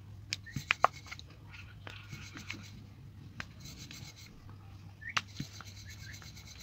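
Rolling pin rubbing and rolling over puri dough on a rolling board, with scattered light clicks and knocks, the sharpest a little under a second in.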